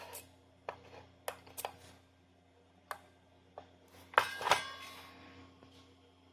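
A handful of sharp, separate clicks over the first few seconds, then a louder clattering burst with a brief ringing tone about four seconds in.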